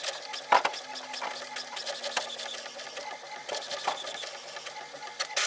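HP OfficeJet Pro 8035 inkjet printer printing its print-head alignment page: the print carriage shuttles back and forth with rapid clicking and whirring as the sheet feeds out. It ends with a sharp click and stops abruptly.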